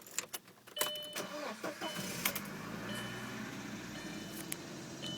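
Audi A4 1.8T's turbocharged four-cylinder engine being started: a few clicks, then the starter cranks about a second in and the engine catches and settles into steady running. The owner reports random misfires on this engine at start-up.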